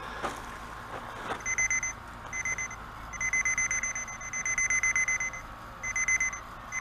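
Pro900 digital locator's audio tone: a high, fast-pulsing beep that comes and goes in stretches from about a second and a half in, longest in the middle. It sounds as the locator passes over the coil at the tip of the Pro65 tracing rod, marking the peak signal at the end of the buried pipe.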